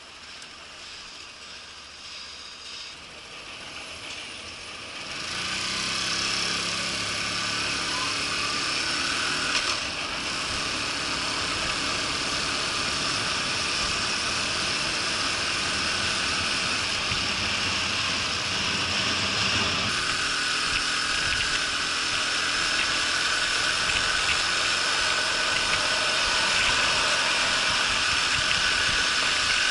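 Honda Super Cub moped's small single-cylinder four-stroke engine under way, quiet at first and then louder from about five seconds in as the bike gathers speed, with steady wind rush. The engine note climbs and then changes about twenty seconds in.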